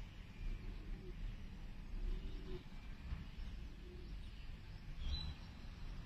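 Outdoor background: a steady low rumble, with faint low calls about once a second and a short high bird chirp about five seconds in.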